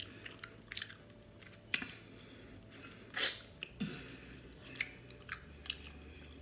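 Close-up chewing and biting on a sauced smoked turkey leg: wet mouth clicks and smacks, with a couple of louder ones about two and three seconds in.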